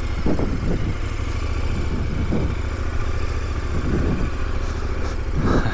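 Adventure motorcycle engine running steadily at low speed while riding a rough dirt track, with about five short thumps, the loudest near the end.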